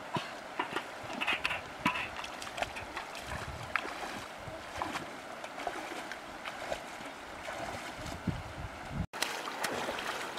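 Shallow river water splashing and sloshing as someone wades and moves through it by hand, with many short irregular splashes and clicks over steady flowing-water noise. The sound cuts out for an instant about nine seconds in, and the splashing then continues.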